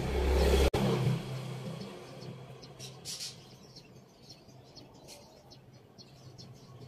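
Small birds chirping in short calls in the middle seconds, over a low rumble that is loudest in the first second and then dies away.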